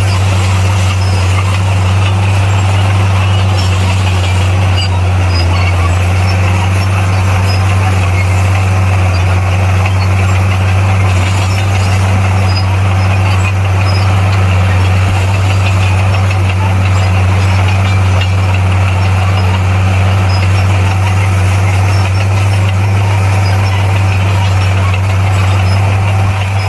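Bulldozer's heavy diesel engine running steadily at an even, low drone, with a wash of mechanical noise over it.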